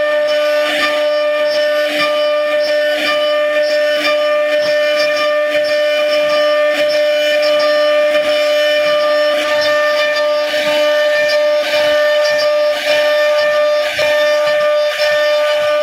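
CNC router spindle whining steadily as its bit carves a relief pattern into a wooden panel, with short irregular ticks from the bit cutting through the wood.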